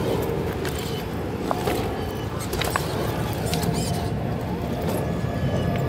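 Traxxas TRX-4 RC crawler's electric motor and gear drive whining faintly and unevenly as it crawls over rocks, with a few sharp clicks of its tyres and chassis knocking on stones, over a steady low rumble.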